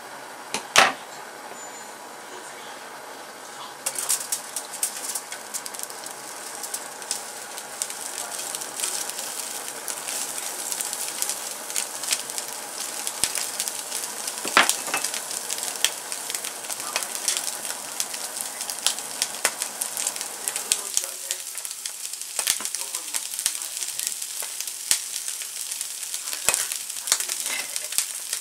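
Sweet shrimp heads sizzling and crackling in hot oil on aluminium foil in a frying pan, the crackle starting suddenly about four seconds in as they go into the pan. Before that there is a sharp click about a second in, and a steady low hum underneath stops about three-quarters of the way through.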